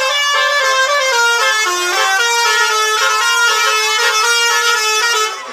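A tour bus's telolet basuri horn playing a melody: several horn tones sounding together, stepping from one held note to the next. It cuts off near the end.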